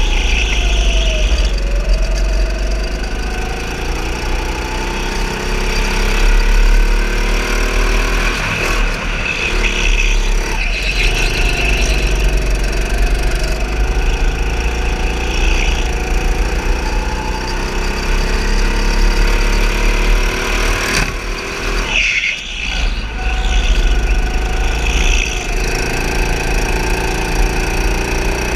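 Go-kart motor running hard around a track, its pitch climbing and falling as the throttle opens and closes through the straights and corners, with a few brief squeals.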